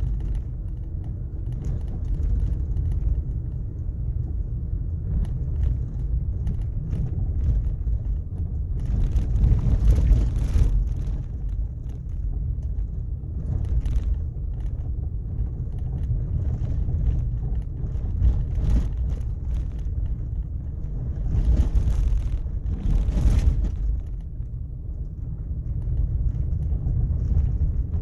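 Vehicle driving on a rough, sand-covered road: a steady low road rumble, swelling twice into a louder rushing noise, about a third of the way in and again about three-quarters through.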